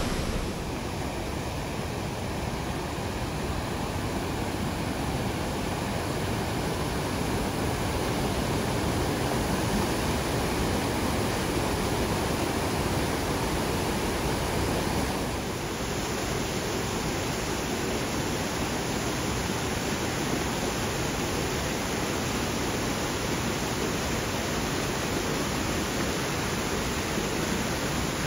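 Ryuzu Falls' cascade rushing down over rock: a steady, even rush of falling water, changing slightly in tone about halfway through.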